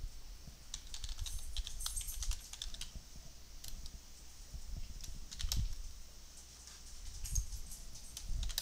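Typing on a computer keyboard: several short, uneven bursts of keystrokes with pauses between, as a login password and then a terminal command are entered.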